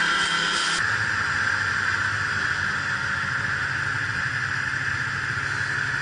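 A steady engine drone with a low hum. Its sound changes abruptly about a second in, then holds steady.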